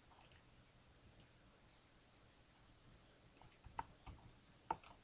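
Near silence: room tone with a few faint clicks near the end, the two clearest about a second apart, from the computer's controls being worked.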